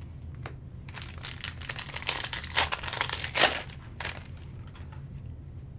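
Plastic trading-card pack wrapper crinkling and being torn open, loudest about two and a half and three and a half seconds in.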